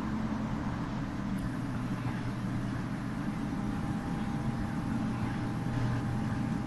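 A low, steady droning rumble. A faint high whine comes in about a second in, and a thin mid-pitched tone joins soon after.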